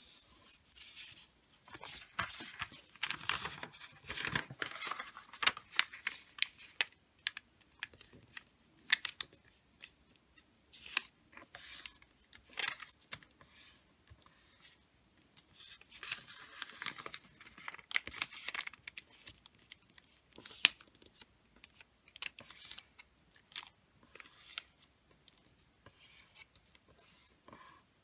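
A sheet of wrapping paper being folded by hand: rustling as it is lifted, turned and flattened, with many short, sharp swishes as the creases are pressed down.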